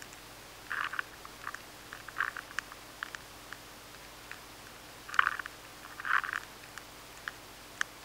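Adult maize weevil chewing inside a maize kernel, picked up by a high-sensitivity sensor: irregular clusters of short clicks and crackles, busiest around five and six seconds in, over a faint steady hum. This feeding noise is the sign of a hidden insect infestation in stored grain.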